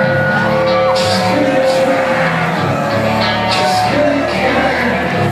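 Live rap-metal band playing loud, with electric guitar, drums with regular cymbal hits, and shouted vocals, heard from within the crowd of a club.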